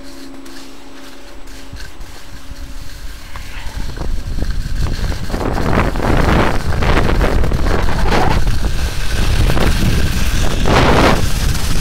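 Wind rushing over the microphone of a skier's camera, growing louder about four seconds in as speed builds. Skis swish and scrape through soft, heavy spring "mashed potato" snow on each turn, about once a second.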